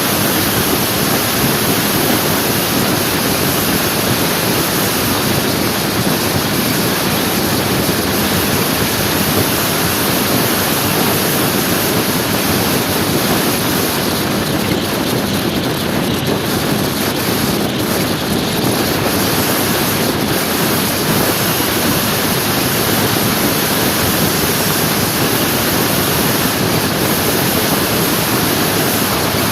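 Steady rush of wind over the microphone, mixed with road and engine noise, as a motor scooter rides along at an even speed.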